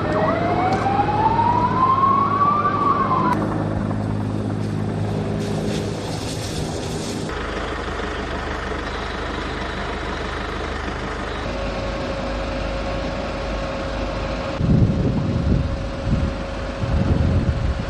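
An emergency siren wails, its pitch rising slowly for about three seconds and then dropping, over a steady low engine hum. After several cuts, steady noise follows, with low gusty rumbles near the end.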